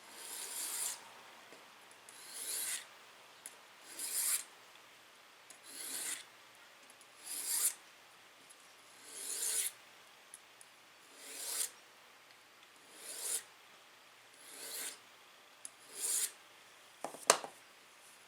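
Ten slow, even hand-filing strokes on the steel of a reciprocating-saw blade, each stroke swelling and then stopping, about one every second and a half to two seconds, as the knife edge is worked. Near the end, a sharp knock.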